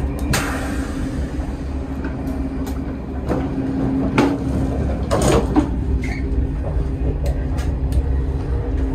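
Electrically powered sliding toilet door of an Alstom Euroduplex high-speed train sliding open at the press of a button and shutting again about five seconds in, with short knocks and clicks, over the steady low rumble and hum of the train running at speed.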